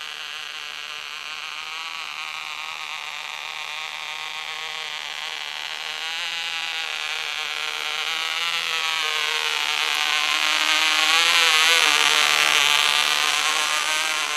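OK Cub .049 two-stroke glow engine on a model glider in flight, a thin, high buzz that grows louder as the plane comes close, peaking about twelve seconds in, its pitch bending as it passes. The engine is running rough and rich, which the pilots put down to a gummed-up motor.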